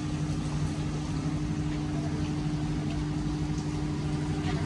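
Steady engine and road drone of a moving car, a constant low hum that does not change pitch.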